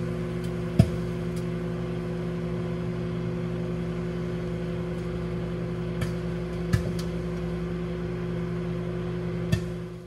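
Microwave oven running at 700 W with a steady hum, a steak heating inside. Four sharp pops spread through it as the meat spatters.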